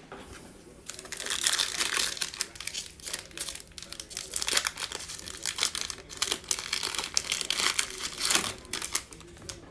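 Trading-card pack wrapper crinkling and crackling as it is torn open and the cards are pulled out, starting about a second in and going on irregularly until near the end.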